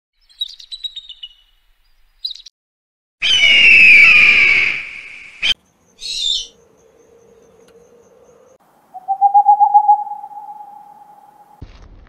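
An eagle calling: a few short high chirps, then a loud, harsh scream about three seconds in that lasts about two seconds and dips a little in pitch. Owl calls follow: a low steady hoot, then near the end a louder, slightly rising hoot with a fast quaver.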